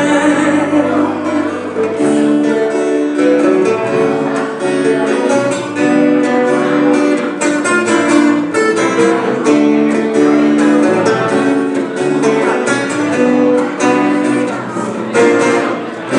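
Live acoustic band playing a song: acoustic guitars strumming chords in a steady rhythm, with a woman singing.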